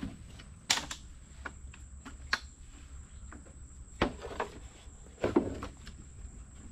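A handful of sharp knocks and clatters as a folding aluminium lawn chair and other gear are moved about on a small boat's deck, the loudest cluster near the end, over a steady low wind rumble.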